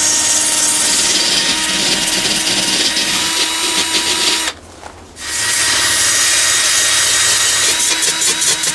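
Black+Decker drill spinning a wire cup brush against the steel shell of an M1916 helmet, scouring off the last paint and primer. The motor runs steadily, breaks off for under a second about halfway through, then resumes, with a rapid chatter near the end as the brush works along the brim.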